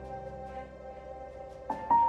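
Soft instrumental background music: a held chord slowly fades, and new notes come in near the end.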